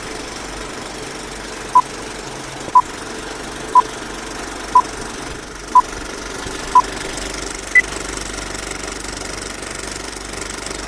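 Countdown beeps: six short, identical beeps one second apart, then a single higher-pitched beep a second later. They play over a steady mechanical rattling whirr, which cuts off suddenly near the end.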